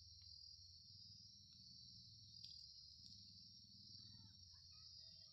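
Faint, steady high-pitched chorus of crickets trilling without a break.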